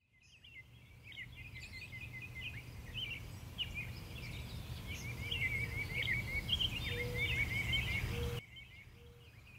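Small birds chirping and trilling in many short, quick calls over a steady low outdoor rumble; about eight seconds in the rumble drops away while the birds keep calling.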